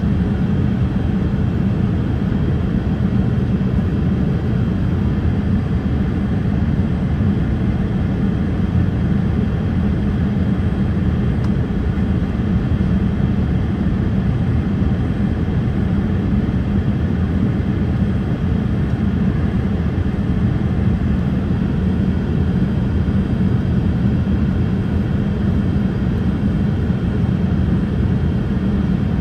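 Boeing 787-8 cabin noise: a steady low rush of airflow and engines, unchanging throughout.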